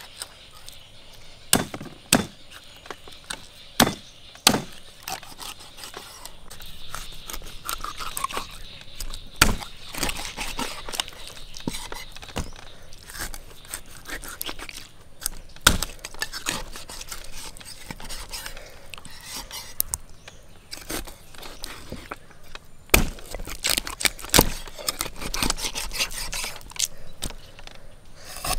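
Irregular scraping and rustling with scattered sharp knocks and clicks, some of them hard, others light.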